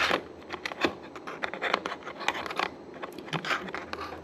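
Rapid, irregular clicks and scrapes of a Hugerock rugged tablet being handled and seated in its metal mounting bracket.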